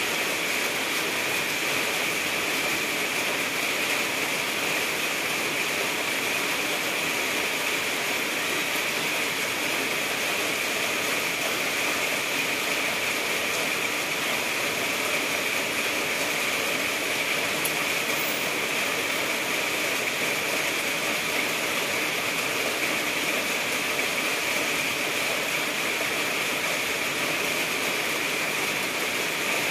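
Heavy rain falling steadily onto a corrugated metal carport roof, an even hiss with no break.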